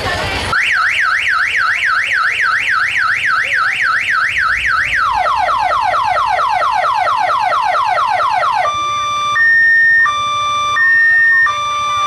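Electronic telolet horn on an odong-odong Tayo bus sounding a fast up-and-down siren warble, switching about five seconds in to quick repeated falling sweeps, then near the end to a stepped melody of held notes.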